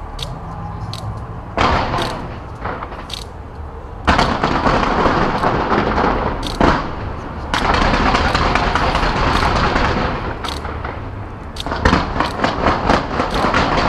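Fireworks bursting: repeated bangs and booms over a constant rumble, thickening into a continuous barrage in the middle, with a quick run of sharp reports near the end.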